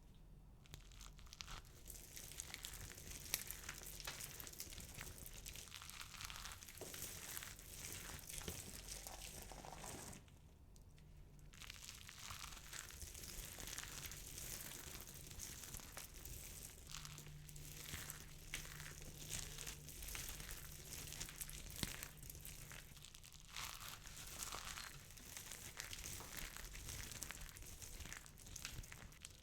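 Dry soap balls being crushed and broken by hand, with a dense run of small crackles and crunches and a short pause about ten seconds in.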